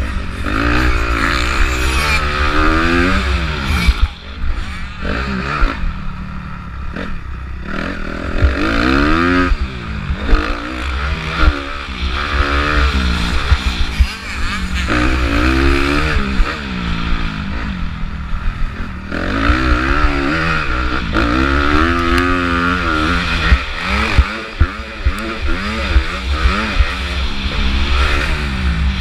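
2015 Honda CRF250R's single-cylinder four-stroke engine racing on a motocross track, heard from the rider's helmet: the engine revs rise sharply again and again and drop as the rider shifts and rolls off, with a deep rumble underneath throughout.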